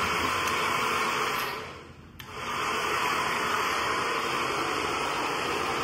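Agaro HD1120 2000-watt hair dryer with a diffuser attachment, blowing steadily. About two seconds in the sound fades away briefly, then the blowing comes back abruptly.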